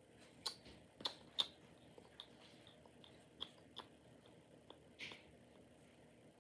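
Baseball cards being handled: faint, scattered small clicks and ticks, with a soft brief rustle about five seconds in.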